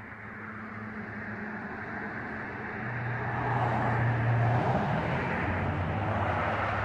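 A car passing by on the road, its tyre and engine noise swelling to a peak about four seconds in and then easing off, over a steady low hum.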